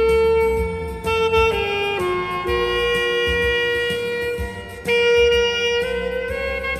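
Saxophone playing a slow hymn melody in long held notes that change every second or two, over a backing accompaniment.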